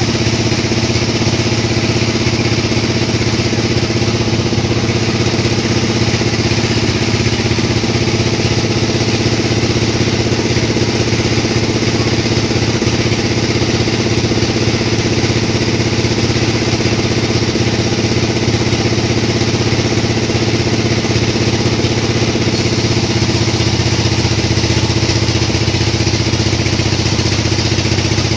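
Sawmill machinery running steadily with a loud, even mechanical hum, shifting slightly in tone a little over twenty seconds in.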